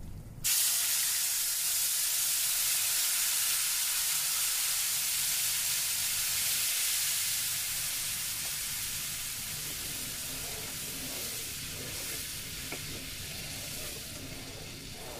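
Water poured into a hot pan of ghee-roasted semolina and sugar, hitting the fat with a sudden loud sizzle and hiss of steam that slowly dies down as the halwa boils. A wooden spoon stirs the mixture near the end.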